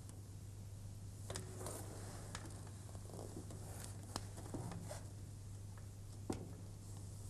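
Faint rustling and a scattered run of small clicks and creaks from people shifting on chairs, the sharpest click near the end, over a steady low hum.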